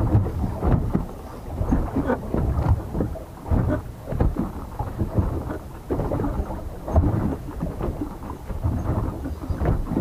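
Low, irregular rumbling and splashing from wind buffeting the microphone and choppy water slapping a small boat's hull, swelling and easing every second or so.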